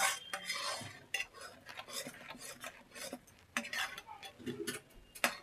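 A steel ladle stirs and scrapes thick melted jaggery around a metal kadhai, giving irregular scrapes and clinks of metal on metal.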